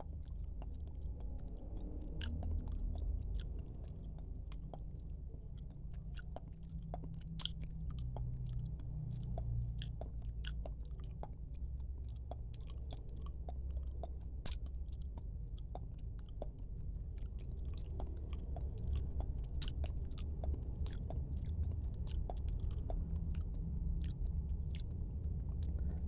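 Close-up chewing of cooked squid, with many small wet clicks and smacks from the mouth over a low steady rumble.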